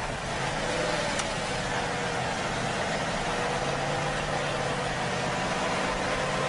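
An engine running steadily: a low, even hum with faint drones holding their pitch.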